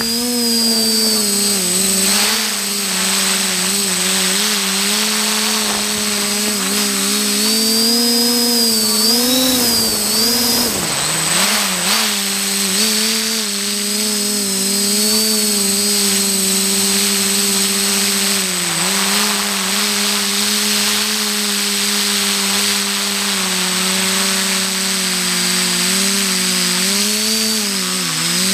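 Motors and propellers of an XJ470 multirotor drone buzzing, heard from the camera on board, with a steady high whine above. The pitch wavers up and down as the throttle changes, dipping sharply about ten seconds in.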